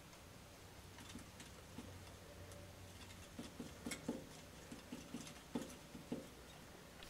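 Glass Erlenmeyer flask being swirled on a ring-stand base, giving a run of faint, irregular taps and scrapes of glass on the base, thickest about halfway through.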